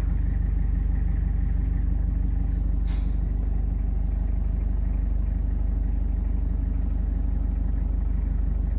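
Van engine running at a steady speed, an even low hum that does not rise or fall, with a single short click about three seconds in.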